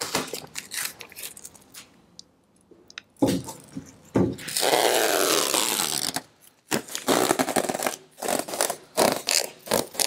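Masking tape being peeled off the roll and laid along an aluminium boat hull: one long rip of about two seconds starting about four seconds in, with shorter rips and taps before and after it.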